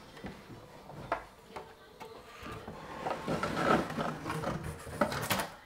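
Pre-built wooden window casing unit rubbing and scraping against the window jamb as it is pushed into a snug fit, with scattered knocks and a louder knock near the end.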